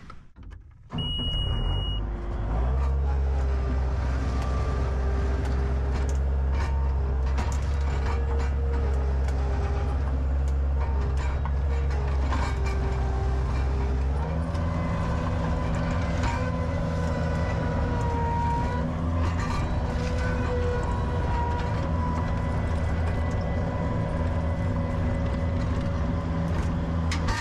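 A large engine runs steadily, most likely heavy digging or hauling equipment. A short high beep comes about a second in, the engine comes up just after, and its pitch steps up about halfway through.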